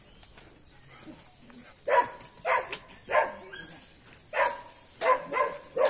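Dog barking: quiet at first, then a run of about seven short barks from about two seconds in.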